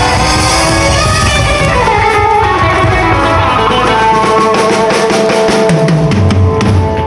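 Live rockabilly band playing, with electric guitar lines over drums and bass; the guitar holds long sustained notes in the second half.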